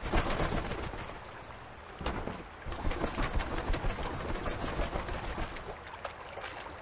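Great cormorants in a shallow stream: bird calls and light splashing of water as one bird flaps and shakes its wings.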